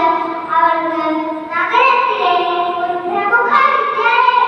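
Young girls singing a slow song without accompaniment, in long held notes in phrases of about a second and a half to two seconds.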